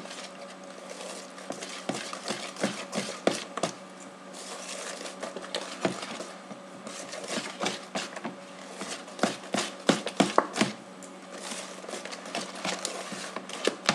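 Wire balloon whisk beating thick sponge cake batter in a plastic bowl: a quick, irregular run of clicks and taps as the wires strike the bowl, busiest in the second half, over a steady low hum.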